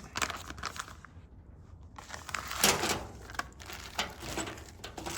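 Hand rummaging through a plastic bag of assorted small screws: irregular clicks and rattles of loose metal screws, with the bag crinkling loudest a little under three seconds in.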